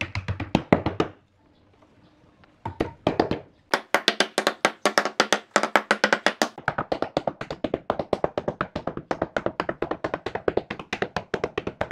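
Wooden mallet striking thin wooden slats to drive them into slots cut in a wooden slab: quick, even taps, several a second. There is a pause of about a second and a half near the start, then an unbroken run of taps.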